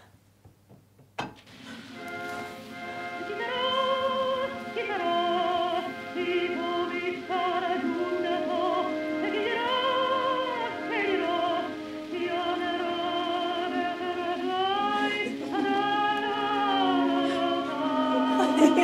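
A soft click about a second in, then an operatic soprano singing a melodic aria with vibrato over sustained accompaniment, played as a recording.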